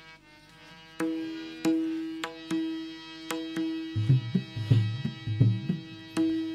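Warkari veena drone strings plucked about seven times, ringing on one steady note, with a short run of low drum strokes around four to five and a half seconds in.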